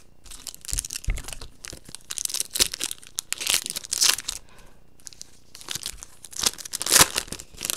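Foil wrapper of a Topps Chrome baseball card pack being torn open and crinkled by hand: a run of irregular crackling rips, with the loudest crinkle near the end.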